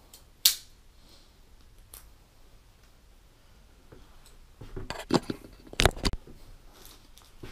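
Small handling sounds of fishing gear on a bed: a single sharp click about half a second in, then a cluster of clicks and rustling about two thirds of the way through as the backing-line spool and gear are set down.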